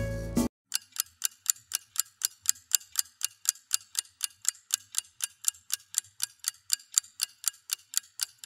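Music ends abruptly about half a second in, then steady, even ticking at about four ticks a second.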